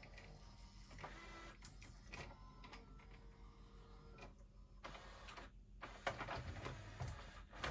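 Pioneer CLD-D504 LaserDisc player's loading mechanism running: a faint motor whir with gear noise and clicks, and a few louder clunks near the end.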